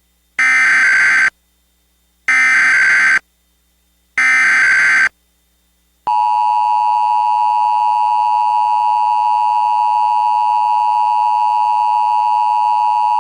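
Emergency Alert System tones: three short bursts of SAME digital header data, each under a second and about two seconds apart, encoding a Required Monthly Test. About six seconds in, the steady two-tone EAS attention signal (853 Hz and 960 Hz together) starts and holds.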